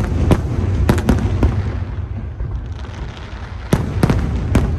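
Aerial fireworks bursting in quick succession over a continuous low rumble. There are four sharp bangs in the first second and a half, a lull, then three more near the end.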